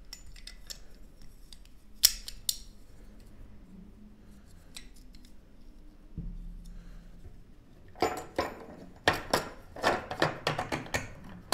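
Hard plastic parts of a Ubiquiti NanoBeam mount clicking and knocking together as the locking collar is fitted over the ball joint: a couple of sharp clicks about two seconds in, then a quick run of clicks and rattles in the last few seconds.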